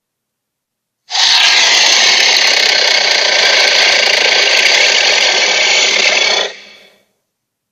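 Cartoon sea monster sound effect: one long, rough, noisy cry of about five seconds, starting about a second in and fading out quickly.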